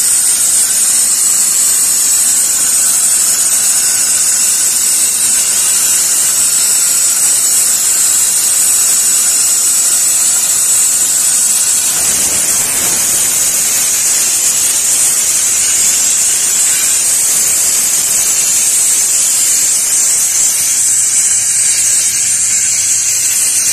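Compressed-air blow gun on an air hose hissing steadily as it blows dust and dirt out of an engine bay, the hiss changing a little as the nozzle moves over the engine.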